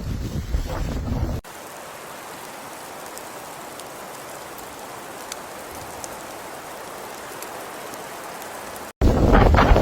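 Wind buffeting the microphone, then an abrupt cut to a steady, even hiss with faint scattered ticks, typical of rain falling, and a cut back to wind buffeting near the end.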